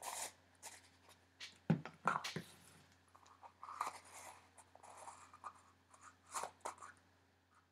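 Small clicks, taps and light scraping of craft supplies being handled and closed up on a tabletop, with one sharper knock just under two seconds in.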